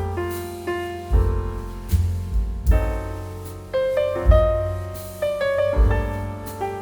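Background piano music: chords and melody notes struck and left to fade, with a low bass note about every second or so.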